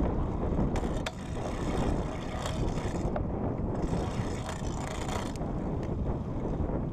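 Wind buffeting the microphone of a road bike ridden at speed, a steady low rumble with tyre noise from the asphalt. A few short clicks come about a second in and again near three seconds.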